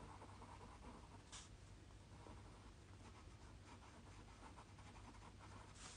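Faint scratching of a white charcoal pencil drawn over a paper tile, with a soft tick about a second and a half in.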